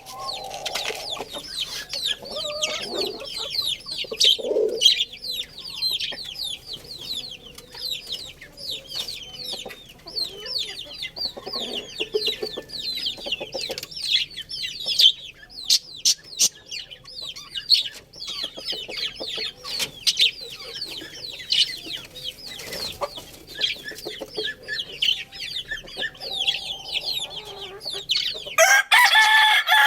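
Chickens clucking amid constant high, rapid chirping, with a rooster crowing loudly near the end.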